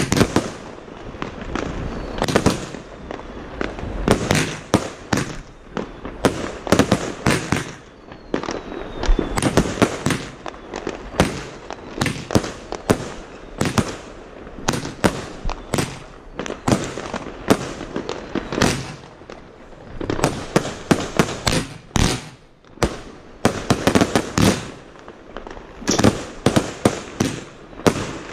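Two Celtic Misty Mayhem 25 mm firework cakes firing shot after shot, each shot a sharp bang; about 21 seconds in, a Primed Kicker 30 mm cake takes over. Other fireworks going off around the neighbourhood add more bangs and crackle in between.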